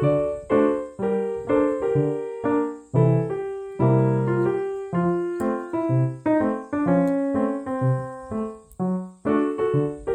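Background piano music: chords and notes struck about twice a second, each dying away before the next.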